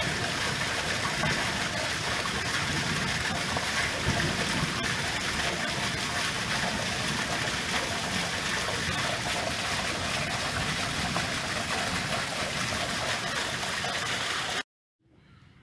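A loud, steady rushing hiss, like running water, that cuts in and out abruptly.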